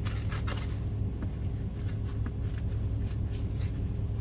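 Pokémon trading cards being handled and leafed through, a scatter of soft clicks and rustles, over the steady low hum of a car's engine.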